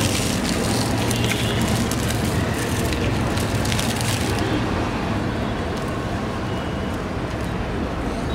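Steady street traffic noise with a low engine hum, brighter and hissier for the first four seconds or so.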